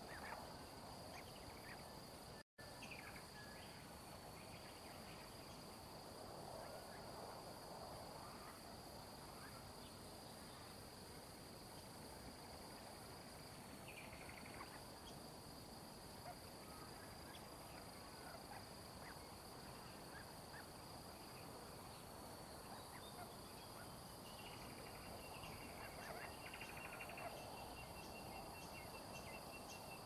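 Faint bush ambience: a steady, high-pitched insect drone, joined about three quarters of the way in by a second, lower insect tone, with a few faint, short bird chirps.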